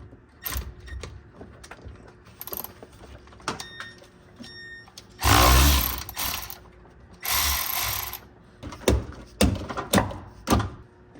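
Cordless impact wrench run in two bursts of about a second each, loosening a bolt on a car's steering rack mount, amid scattered metallic clicks and knocks of tools and parts.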